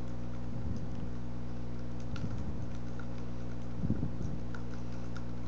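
Steady electrical hum from the recording microphone, with faint, scattered clicks of typing on a computer keyboard and a few soft low thumps.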